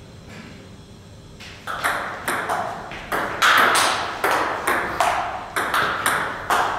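Table tennis rally: the ball struck back and forth by paddles and bouncing on the Donic table, a run of sharp clicks about two to three a second with a short echo. The rally starts about a second and a half in.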